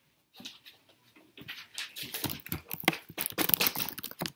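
Handling noise from a phone camera being picked up and moved right at its microphone: a quick run of knocks, scrapes and rustles starting about a second and a half in.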